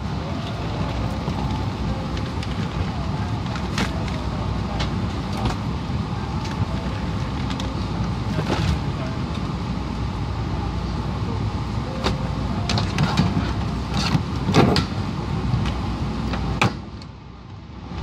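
Airbus A380 cabin noise in flight: a steady drone of engine and airflow, with scattered light clicks and knocks. The noise falls away sharply about a second before the end.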